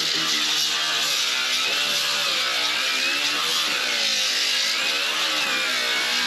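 Handheld angle grinder cutting into old fiberglass-laminated structure: a steady high grinding whine whose pitch wavers up and down as the disc bites and eases.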